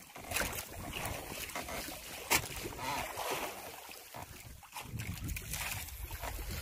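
Sea water sloshing against the hull of a small fishing boat, with a sharp knock about two seconds in and a low rumble that grows stronger near the end.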